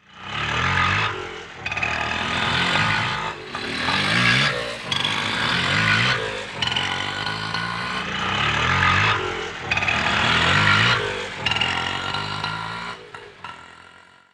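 Indian auto rickshaw's small engine being revved again and again, its pitch rising and falling in surges every second or two, then dying away near the end.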